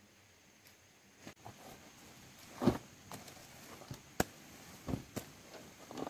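Chopped banana stem and greens tipped from a plastic basin onto a heap: scattered soft thumps and a sharp click, starting about a second and a half in, the loudest thump near the middle.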